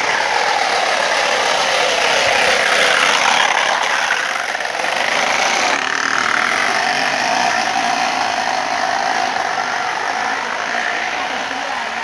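Plastic bottle fixed against a moving bicycle wheel as a mock motorbike exhaust, buzzing and rattling continuously like a small engine, its pitch rising and falling as the riding speed changes.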